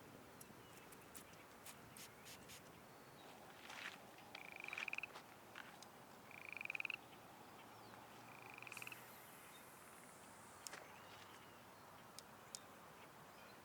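A frog calling faintly: three short trills, each under a second and about two seconds apart. Faint clicks and taps are heard here and there.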